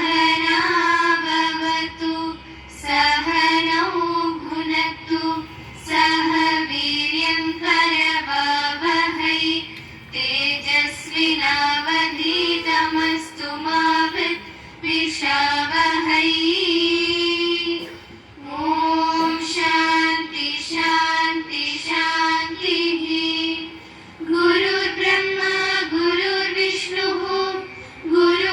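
Schoolchildren singing a prayer together, in sung phrases a few seconds long with short breaks between them.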